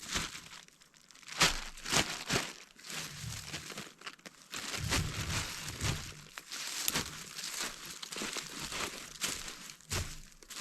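Irregular crinkling and rustling with sharp crackles, from something being handled and packed as the caught fish is stowed away in cold storage.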